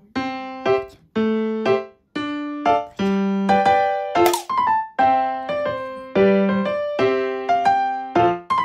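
Background music: a light electric-piano tune in a steady rhythm, with a brief sweeping sound effect about four seconds in.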